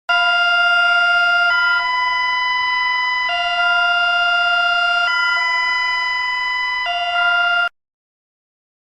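Electronic emergency-alert alarm tone: a loud, steady two-tone sound that switches back and forth between a higher and a lower chord about every 1.8 seconds, then cuts off suddenly near the end.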